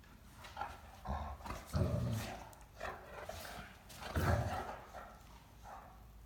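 Great Danes play-wrestling, one of them giving a few short, deep complaining barks and grumbles, the strongest about two and four seconds in.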